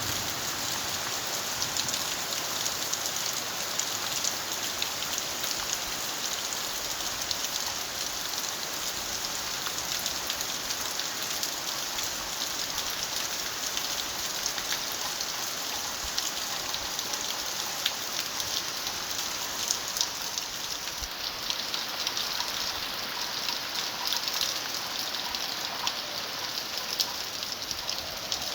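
Steady rain falling, a dense hiss of drops pattering on surfaces with many small individual ticks.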